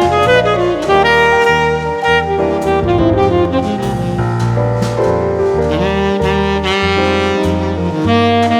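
Background jazz music: a saxophone playing a melody over piano and a walking bass.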